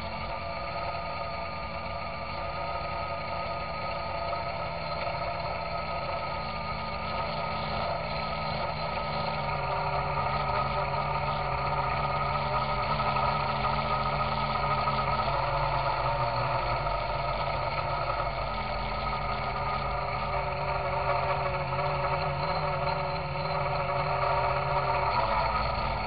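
Quadcopter's brushless motors and propellers whining steadily, heard from the aircraft's own onboard camera, growing louder about ten seconds in. The motors are noisy, a sound the owner takes for bad bearings out of the box.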